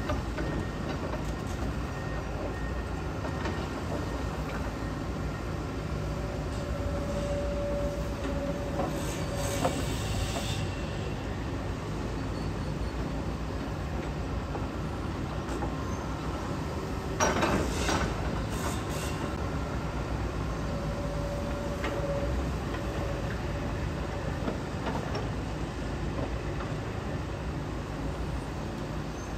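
Hitachi ZAXIS 210K hydraulic excavator running and working, a steady low machine drone with a thin whine that comes and goes. Metallic clanks sound about a third of the way in, and a louder clatter comes just past halfway.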